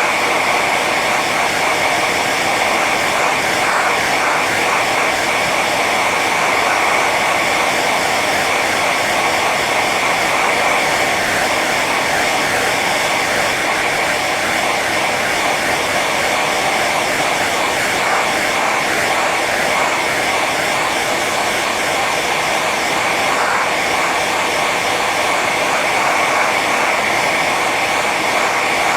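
Hair dryer running steadily on its high setting: an even rush of blowing air over a constant whine.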